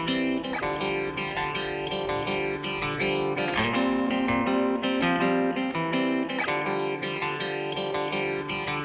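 Background music led by plucked guitar, a light melody with notes changing about twice a second.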